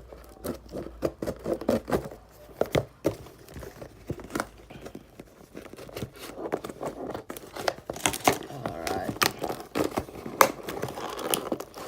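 Packaging being crumpled and torn open by hand: a run of sharp crinkles, rips and crackles that grows busier over the last few seconds.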